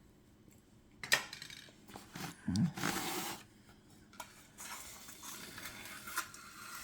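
Small objects being rummaged through and moved about by hand: scattered clicks and light clinks, with a louder rustle or scrape about three seconds in.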